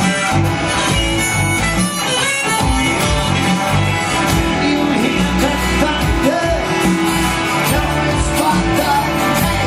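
Band music: a song playing steadily, with guitar among the instruments.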